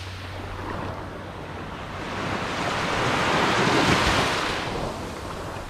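Small surf waves breaking and washing up onto a sandy beach, the rush of water swelling to its loudest about three to four seconds in, then easing.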